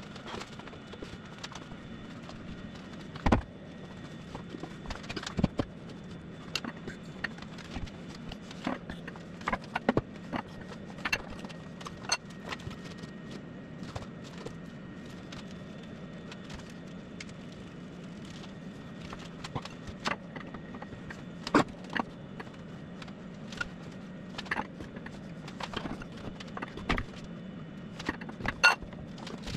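Scattered metallic clunks, clinks and knocks as a classic Mini's A-series engine and gearbox unit is lowered on a hoist chain and guided into the engine bay. The loudest knock comes about three seconds in, with more near the middle and end, over a steady low hum.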